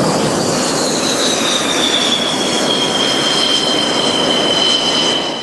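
JF-17 Thunder fighter's jet engine running as the aircraft taxis, a loud rush with a high whine that slowly falls in pitch.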